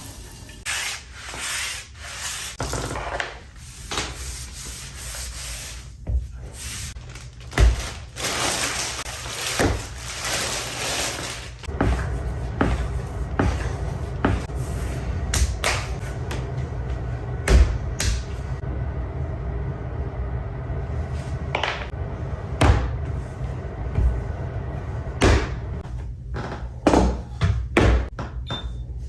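Hands working clay on a wooden table: rubbing and scraping, with repeated heavy thuds as the lump of clay is pressed and dropped onto the wood. A steady low hum runs under it from about halfway.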